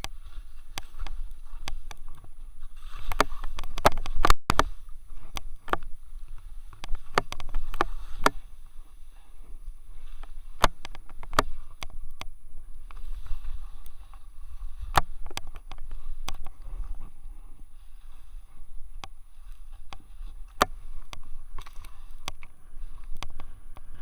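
Skis swishing through powder snow as a skier descends through trees, with many irregular sharp clicks and knocks over a steady low rumble.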